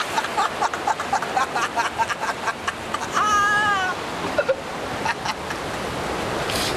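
Churning water of a river rapids raft ride rushing past, with riders laughing in quick bursts. About three seconds in, one rider gives a short high-pitched cry, and after it the water rush carries on alone.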